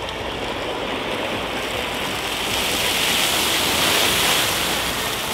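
Oil fire flaring up from a propane turkey fryer: a dense rushing noise of flame and spattering hot oil that builds and is loudest about three to four seconds in.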